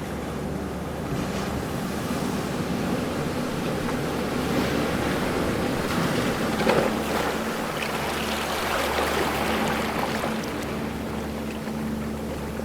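Ocean waves washing in, swelling to a peak about halfway through and again a little later, over a steady low hum.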